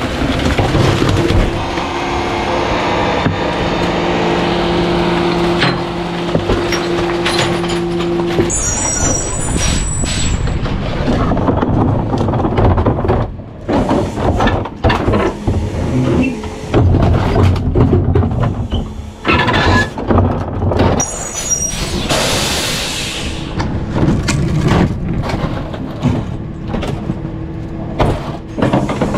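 Rear-loader garbage truck at work: a steady drone from the packer hydraulics for the first several seconds, then irregular knocks, bangs and crunching as trash is thrown into the hopper and crushed. There are short squeals of metal, and a burst of air hiss about three-quarters of the way through.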